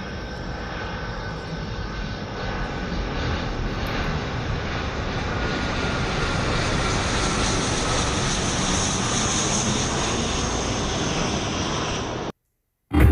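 An airplane flying over: a steady engine drone with a faint tone slowly falling in pitch, growing gradually louder. It cuts off abruptly near the end.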